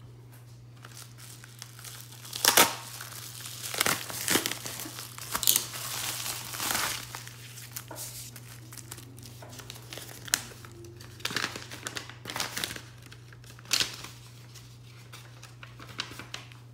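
A plastic bubble mailer being torn open and its contents handled: crinkling and rustling of the mailer, bubble wrap and a paper packing slip in irregular bursts, the loudest about two and a half seconds in. A steady low hum runs underneath.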